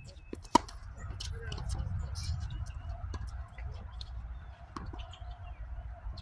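Tennis court sounds: one sharp pop of a tennis ball about half a second in, over a steady low rumble of wind on the microphone and faint scattered ticks.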